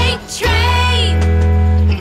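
Children's cartoon background music; about half a second in it settles on one long held chord.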